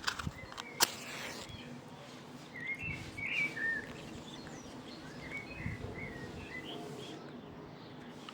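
Small birds chirping: a run of short, high chirps starting about two and a half seconds in, over a faint steady outdoor background. A single sharp click sounds just before the chirping begins.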